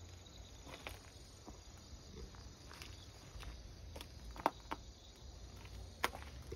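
Footsteps on dry twigs and gravel: scattered faint crackles and clicks, the sharpest a little past the middle and another near the end, over a low steady rumble.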